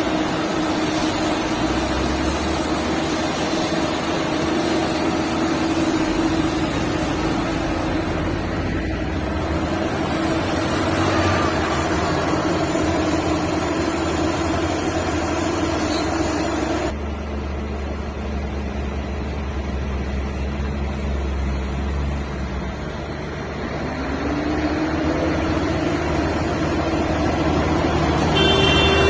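Liebherr 954 hydraulic excavator's heavy diesel engine running with a steady hum. The sound changes abruptly about two-thirds of the way through, and near the end the pitch rises as the engine revs up.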